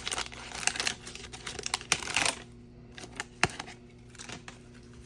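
Baseball card pack wrapper crinkling as it is opened, then, about two seconds in, a scattering of light clicks and taps as the cards are handled.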